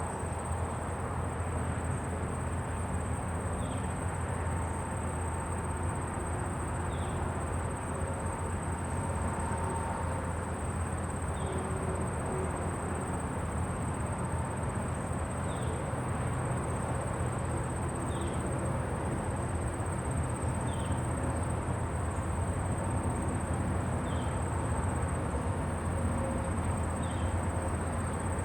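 Countryside ambience: a steady high-pitched insect drone, a bird giving short falling chirps every couple of seconds, and a low, even rumble of wind.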